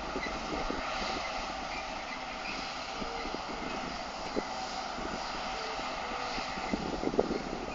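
New Holland TX68 combine running steadily while harvesting wheat, a constant machine drone with a few light knocks scattered through it.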